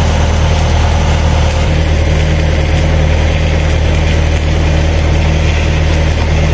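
Hydraulic excavator's diesel engine running steadily, an even low drone with no revving.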